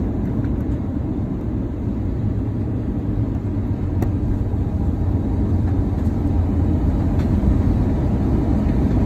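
Steady low rumble of an Airbus A321 airliner's engines and wheels, heard inside the cabin as it rolls along the runway after landing. The noise grows a little louder in the second half.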